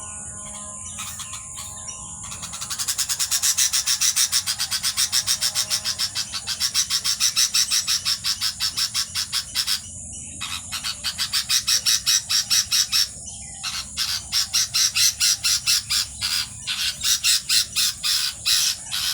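Nestling birds in a nest chirping: a fast, loud run of high, repeated calls, several a second, that starts a couple of seconds in and breaks off briefly twice.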